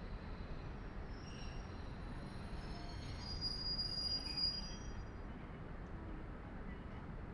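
Train running with a steady rumble, and a high-pitched squeal from about one to five seconds in.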